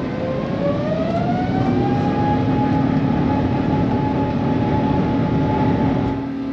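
Airbus A350-900's Rolls-Royce Trent XWB turbofan engines spooling up to takeoff thrust, heard from inside the cabin: a whine rises in pitch over the first two seconds and then holds steady over the roar of the takeoff run and climb-out.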